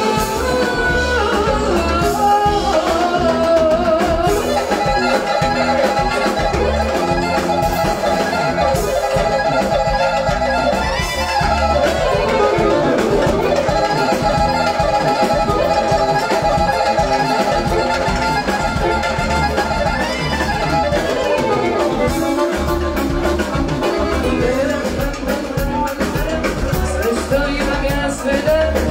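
Live band playing with drum kit, accordion, guitar and keyboard, and a woman singing into a microphone.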